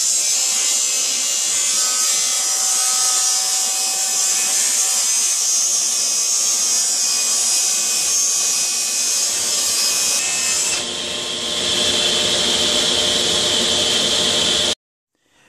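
Table saw running and ripping laminated plywood with the blade tilted for a bevel cut: a loud, steady whine of blade and cutting. The tone changes about ten seconds in, and the sound cuts off abruptly near the end.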